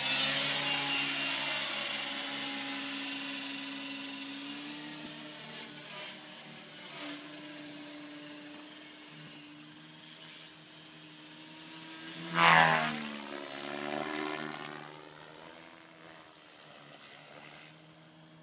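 Electric T550 RC helicopter flying: a steady rotor hum and high motor whine, loudest at lift-off and fading as it climbs away. About twelve seconds in it swells briefly and loudly as it passes close, the pitch dropping as it goes by.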